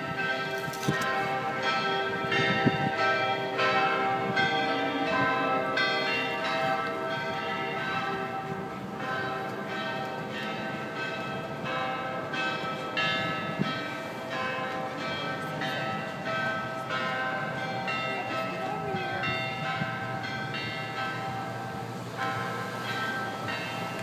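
Church bells ringing the noon bells: several bells struck in quick succession, their tones overlapping and ringing on.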